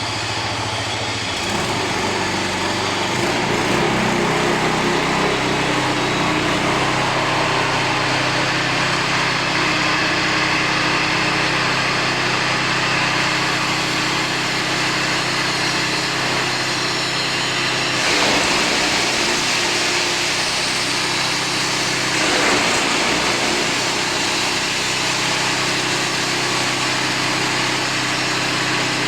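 Petrol-engine wood chipper running steadily at working speed. Two louder, rougher stretches about two-thirds of the way through are wood going through the chipper.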